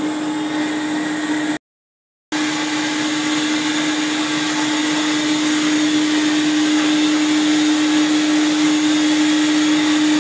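Vacuum motor of an upholstery cleaning extractor running steadily, a constant hum over a hiss. A little under two seconds in, the sound drops out completely for under a second, then resumes unchanged.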